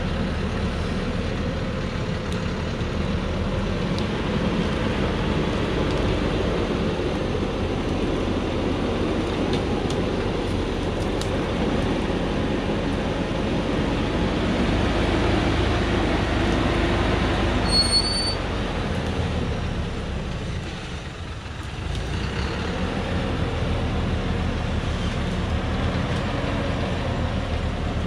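A heavily loaded truck's diesel engine runs steadily as the truck crawls along a rough dirt track. A brief high squeak comes about two-thirds of the way through. Shortly after, the engine sound dips for a couple of seconds, then picks up again.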